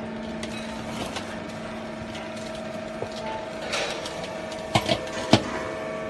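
Hydraulic marine baler running: the pump motor gives a steady hum while the press works. Near the end come three sharp knocks, two close together and a third just after.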